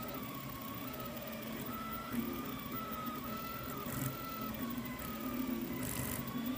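Delta 3D printer's stepper motors whining as the print head moves, the pitch stepping up and down with each change of move.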